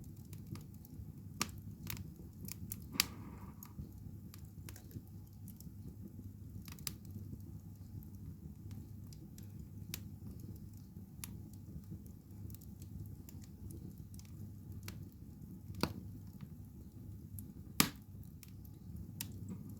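Wood fire burning in a fireplace, crackling with irregular sharp pops over a low steady rumble; a few pops stand out louder, about three seconds in and twice near the end.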